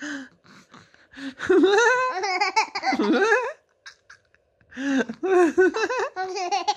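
A baby laughing: a short squeal at the start, then two long bouts of high, pulsing baby laughter, one starting about a second in and another from about five seconds in.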